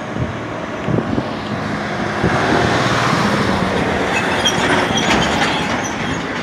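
Road traffic noise: a vehicle passes close by, its tyre and engine noise swelling for a few seconds in the middle and then easing.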